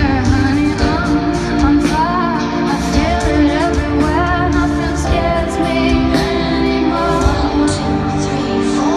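Female lead vocalist singing live with her band through a large outdoor PA system, heard from within the crowd; a slow, wavering sung melody over steady accompaniment.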